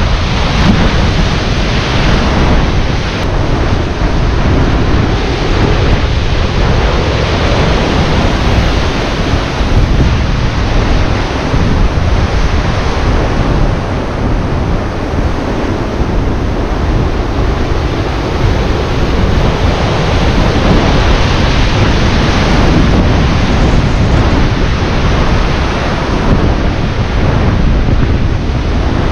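Rough sea surging and breaking on shore rocks, with wind buffeting the microphone: a loud, steady rushing noise, heaviest in the lows.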